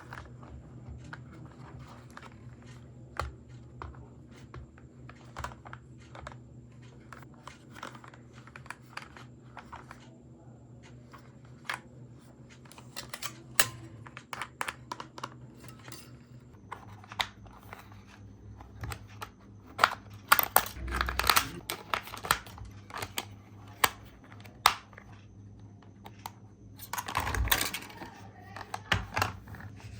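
Hands handling small plastic toy parts and packaging: irregular clicks, taps and rustling over a faint steady hum, with louder spells of clattering and crinkling about two-thirds of the way through and again near the end.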